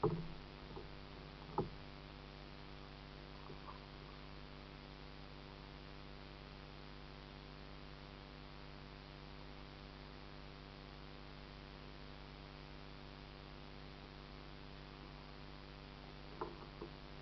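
Faint, steady hum made of many even tones, with a few brief knocks: one at the start, one about a second and a half in, and a couple near the end.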